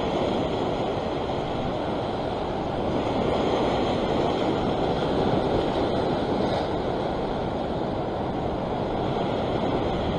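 Ocean surf washing steadily over a rock ledge.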